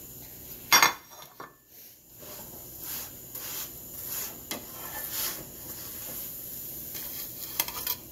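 A ceramic plate set down on the counter with one sharp clack a little under a second in, then light metal taps and scrapes as a cooked paratha is lifted off a tawa griddle with a metal utensil and laid on the plate.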